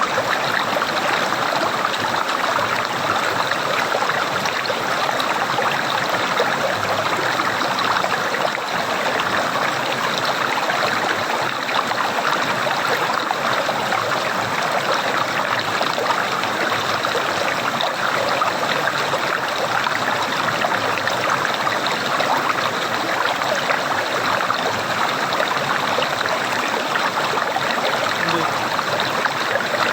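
Running water gurgling in a steady, unbroken flow, like a brook.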